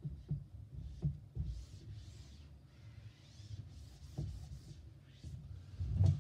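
Whiteboard eraser wiped across a marker-drawn whiteboard in repeated strokes: soft swishes, with a few dull low thumps as the eraser and hand bump the board.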